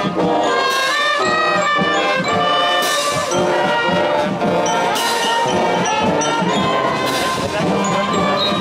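Brass band playing live: trumpets and trombones over low brass, with a crash about every two seconds.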